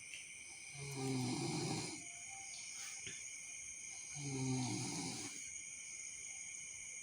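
A person snoring in deep sleep: two slow snores, each about a second long and about three seconds apart, with quiet breathing in between.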